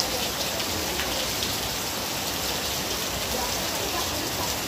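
Steady rain falling on wet ground: an even hiss with scattered drop ticks.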